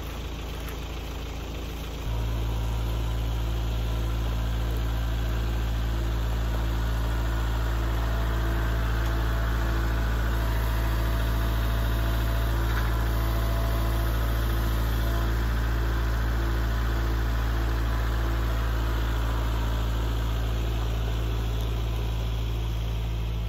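Kubota L4701 tractor's diesel engine running steadily, getting louder about two seconds in and holding there.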